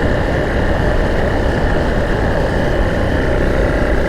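Motorbike engine running steadily while riding along a dirt track, with constant riding noise and no change in pace.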